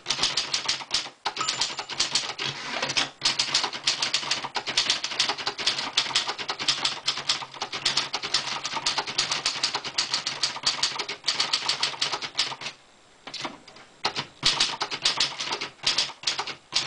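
Fast typing on a Royal Tab-O-Matic manual portable typewriter: a dense run of key strikes clacking against the platen, pausing briefly about three-quarters of the way through.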